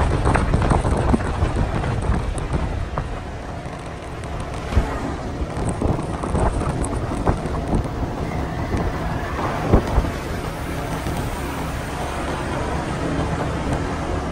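Road vehicle driving along at steady speed: the low hum of its engine and tyres, with wind buffeting the microphone and a couple of brief bumps.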